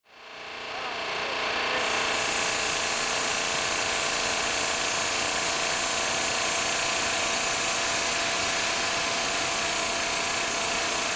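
Air compressor running steadily. It fades in over the first two seconds, then holds a constant level.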